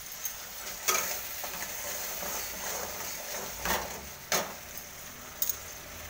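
Faint steady sizzle of food frying in a pan, broken by sharp knocks: one about a second in, two close together past the middle, and a quick double click near the end.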